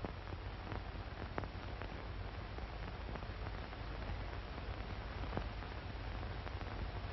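Steady hiss and low hum from an old film soundtrack, with a few faint clicks and no dialogue or music.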